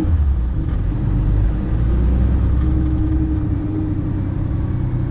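Volvo FM 340 truck's diesel engine running while driving, heard inside the cab as a steady low rumble.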